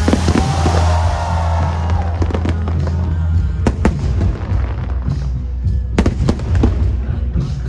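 Aerial fireworks bursting over loud show music with a heavy bass: a hissing crackle with wavering whistle-like tones in the first two seconds, then sharp cracks of shells, the loudest about four and six seconds in.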